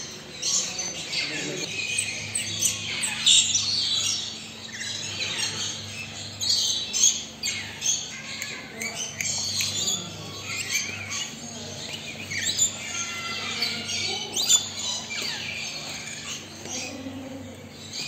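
A flock of aviary parrots, lories among them, squawking and chirping in a dense, overlapping chatter of short harsh calls, with a faint steady hum underneath.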